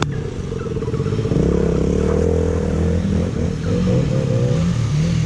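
Motorcycle engine running under way, its pitch rising and falling several times as the throttle is opened and closed.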